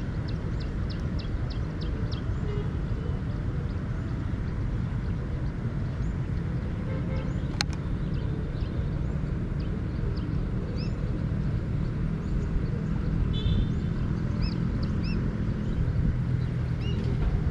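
Wind rumbling on the microphone, with short high bird chirps scattered through and one sharp click about halfway through.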